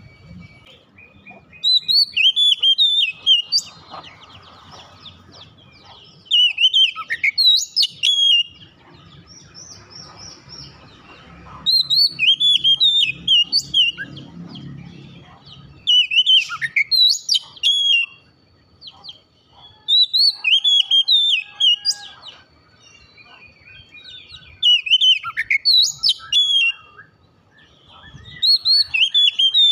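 Oriental magpie-robin (kacer) in full song: loud phrases of rich, rapidly varied whistles and chirps, about two seconds each, repeated every four to five seconds, about seven times.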